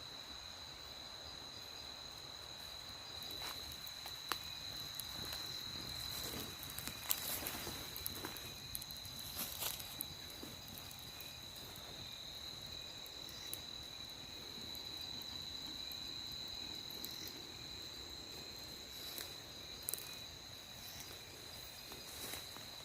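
Night insect chorus: a steady high-pitched trill that runs without a break, with scattered light clicks and snaps, most of them in the first half and a couple more near the end.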